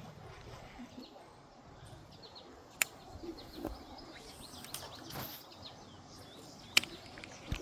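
Birds chirping over a steady outdoor background, broken by two sharp, loud clicks, one about three seconds in and one near the end.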